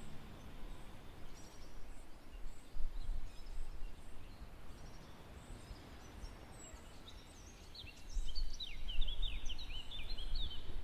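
Wind gusting over an outdoor microphone as a low, uneven rumble. Small birds chirp in quick sweeping notes from about eight seconds in.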